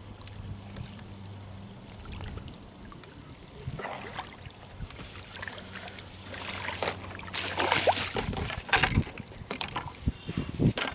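Hooked carp splashing at the water's surface as it is played on a pole, the splashes coming thicker and louder in the second half. A steady low hum runs underneath until it stops about eight seconds in.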